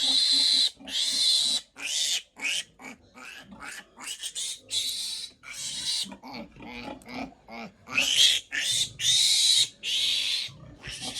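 Piglet distress squealing while being held and handled: a string of loud, high screams, each under a second, with shorter, quieter squeals and grunts between them in the middle and the loud screams returning near the end.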